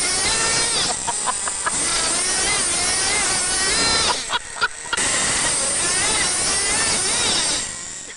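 Small nitro RC truck engine revving at high pitch, its whine rising and falling as the throttle changes. It breaks up briefly about four seconds in, then comes back and fades near the end.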